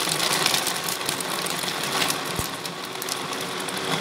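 Electric countertop blender running, churning mango pieces, milk and ice cubes into a shake: a steady motor whir.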